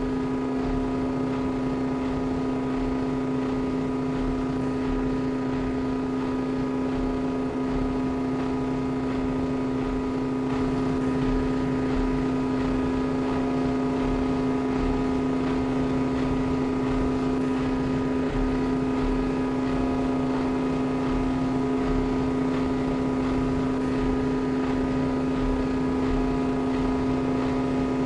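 Steady machine hum with a constant low tone and a fainter tone above it, unchanging in pitch.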